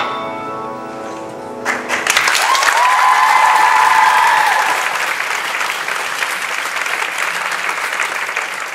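The final grand piano notes ring and die away, then the audience breaks into applause about two seconds in, with one long high whoop over the clapping; the applause slowly thins toward the end.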